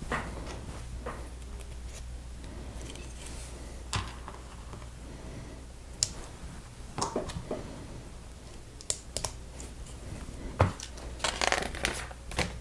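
Plastic Lego pieces being handled and snapped together, with scattered sharp clicks at irregular intervals and a quick flurry of clicks and rustling near the end.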